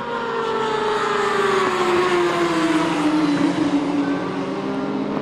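Racing motorcycle engine running hard, its pitch falling steadily over about three seconds and then holding level.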